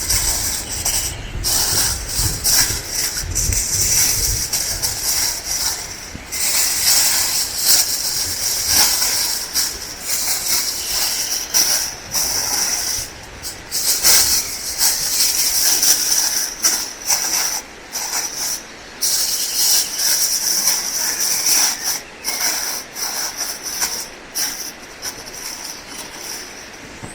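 Lamb frying in hot fat: a steady sizzle dotted with many small crackles and pops, with a few brief lulls.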